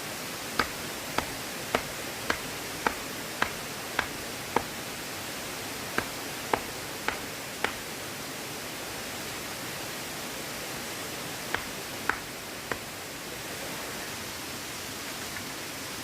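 Sharp knocks at an even pace of about two a second, struck in three runs of eight, four and three, over a steady rushing background noise.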